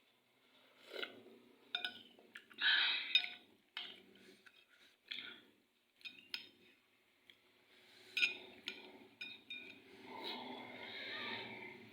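Eating instant noodles: scattered clinks of cutlery against a bowl, with short bursts of eating and breathing noise between them.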